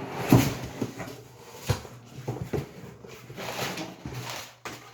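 Cardboard box being handled and opened, with packing paper rustling and a few light knocks, the sharpest about a third of a second in.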